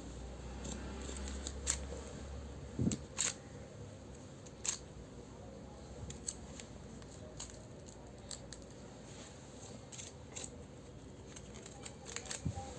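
Scattered sharp clicks and taps of small toy kitchen pieces and their packaging being handled, with a few louder ones about two, three and five seconds in and a quick cluster near the end.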